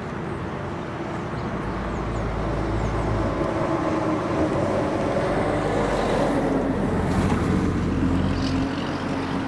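A road vehicle driving past, its engine and tyre noise swelling to a peak about six to eight seconds in.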